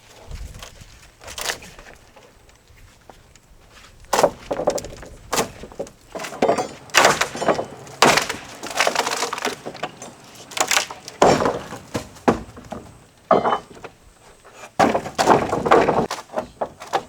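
Wooden deck boards being pried up, with a run of irregular cracks, creaks and knocks as the wood splits and pulls loose from the joists, mostly from about four seconds in.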